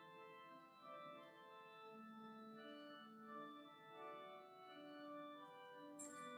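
Church organ playing quietly, slow held chords that change every half second or so. A brief click near the end.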